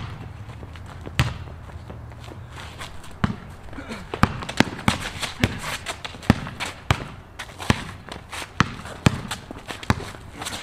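Basketball dribbled on a concrete court: a few bounces at first, then from about four seconds in a steady run of sharp bounces, two to three a second.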